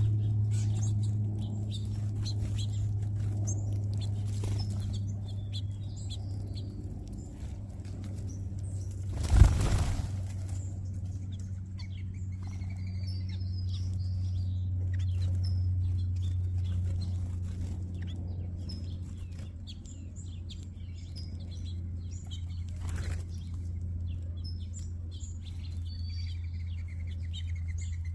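Small birds chirping in a flock, with a brief loud flurry of flapping wings about nine seconds in and a fainter one later. A steady low hum runs underneath.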